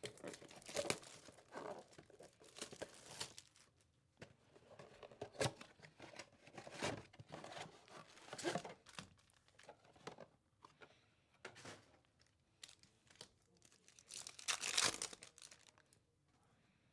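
A cardboard trading-card box is torn open and card-pack wrappers are ripped and crinkled. The sound is a string of short, irregular tearing and rustling noises, loudest near the end.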